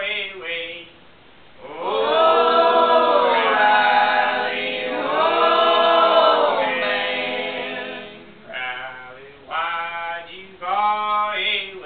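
Unaccompanied singing in long held notes that bend in pitch, followed by shorter sung phrases near the end.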